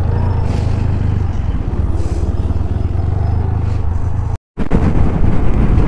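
TVS Apache 160 4V motorcycle's single-cylinder engine running steadily while riding, a constant low drone under a wash of road and wind noise. The sound cuts out completely for a split second about four and a half seconds in.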